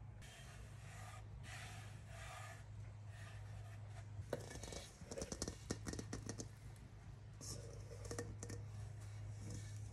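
Faint kitchen handling sounds. A hand brushes and rubs flour across a wooden board, then comes a run of light clicks and knocks, and a metal mixing bowl is handled as the dough is tipped out onto the board.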